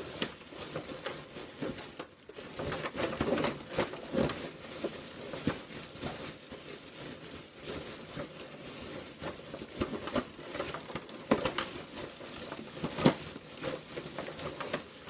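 Irregular rustling and crinkling with scattered light clicks and taps, and a few sharper knocks in the second half.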